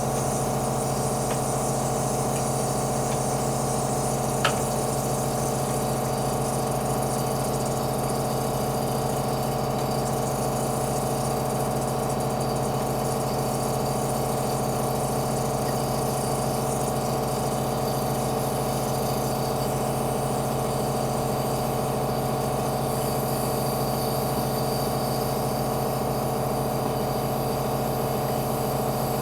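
Nebulizer air compressor running with a steady hum and a hiss. A single click about four and a half seconds in.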